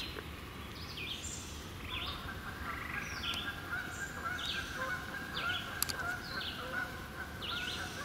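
Wild songbirds singing and calling: many short, high, downward-slurred chirps and notes at irregular moments. About two seconds in, a steady higher tone joins them. All of it sits over a low background rumble.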